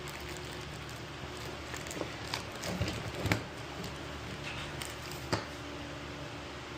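A few light clicks and rustles of parts and packaging being handled, over a steady low hum.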